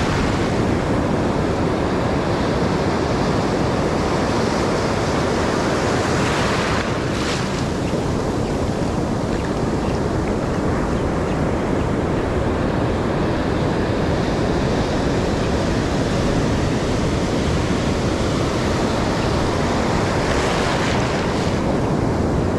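Ocean surf washing and breaking around the listener, with wind buffeting the microphone. The rush of white water swells twice, about six seconds in and again near the end.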